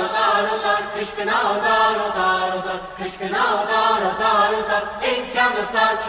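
Armenian folk song sung by a vocal ensemble: long, wavering sung notes that slide between pitches, over a steady low held note.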